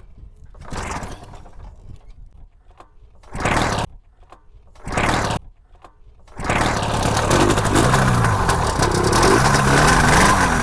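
Paramotor engine being started: three short bursts of running that die out, then it catches about six seconds in and keeps running steadily.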